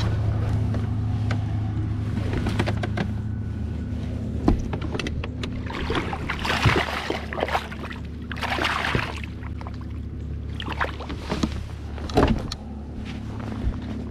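Hooked largemouth bass splashing at the surface beside the boat as it is brought in, in two bursts about six and nine seconds in, with a few sharp knocks. Under it a steady low motor hum.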